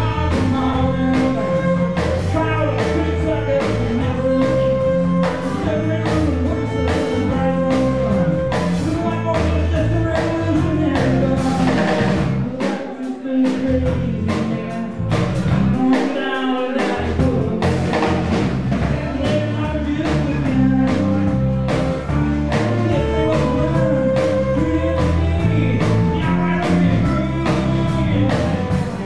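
Live folk band playing: strummed acoustic guitar, violin, bass and drum kit under a male lead vocal. Twice, about halfway through, the bass end drops out for a moment.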